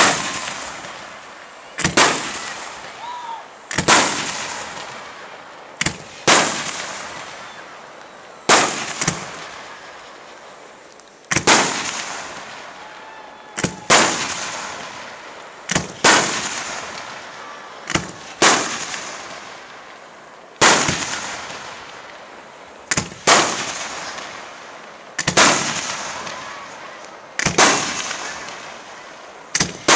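Aerial firework shells bursting one after another, a loud bang about every two seconds, some in quick pairs, each trailing off with a fading echo.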